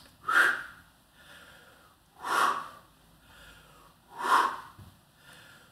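A woman's forceful breaths out, three in a row about two seconds apart, paced by swinging side-bend stretches, with fainter breathing in between.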